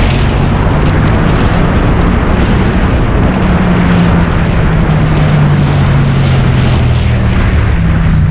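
Yamaha MT-07's parallel-twin engine running through a full Akrapovic titanium exhaust fitted with a dB killer, on the move, under heavy wind noise on the camera's microphone. The engine note falls slowly in pitch through the middle and picks up again near the end.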